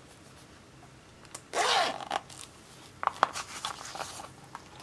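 Zipper of a plastic pencil pouch pulled open in one quick stroke, followed by clicks and rustling as small bottles are handled and taken out of it.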